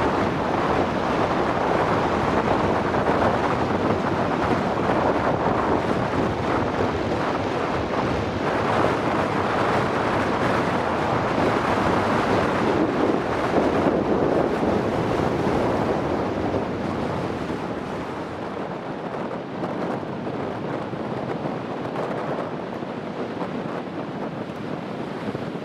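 Strong storm wind buffeting the microphone over heavy surf breaking on a sandy beach, a steady rushing noise that eases off somewhat a little past the middle.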